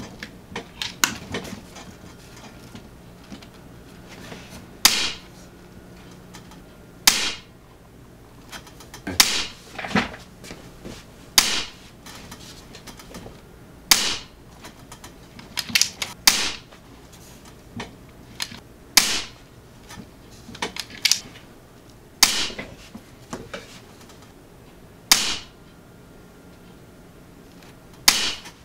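About ten shots from a regulated .22 ATI Nova Liberty PCP air rifle, one every two to three seconds, with lighter clicks in between. Each shot is a sharp crack with a short ringing tail. The rifle is still on its regulator, and the string is very consistent.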